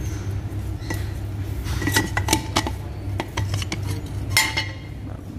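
Metal parts of an OS Giken twin-plate clutch clinking and ringing as they are handled and shifted in the flywheel assembly: a handful of sharp metallic clinks, the loudest about four seconds in, over a steady low hum.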